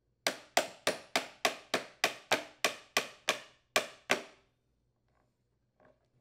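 Hammer striking channel-lock pliers that grip a push mower's rear door hinge rod, driving the rod through the rear axle housing: about a dozen quick, even blows, roughly three a second, each ringing briefly, stopping about four seconds in.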